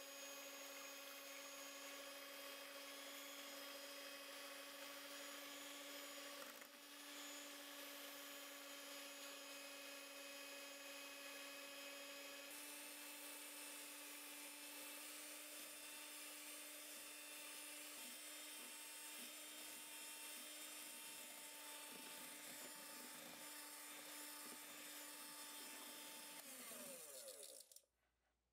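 Electric hand mixer running steadily, its beaters whirring through whole eggs in a stainless steel bowl as they whip up into a pale foam; a faint, even motor whine. The pitch steps up slightly about twelve seconds in, and near the end the motor winds down and stops.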